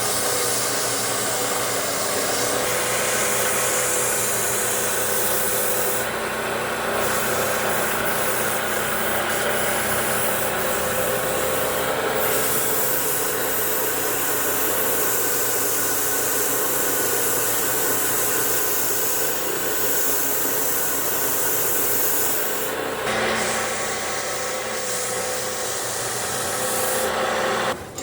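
Wood lathe running with a steady motor tone while a turning tool or abrasive rubs against the spinning wooden table leg, the scraping texture shifting every several seconds. It stops abruptly at the end.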